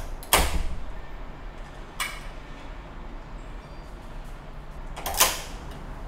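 Front door and its Yale Luna Pro push-pull smart lock at work. A sharp knock comes just after the start, a lighter click at about two seconds, and a louder, longer mechanical sound about five seconds in.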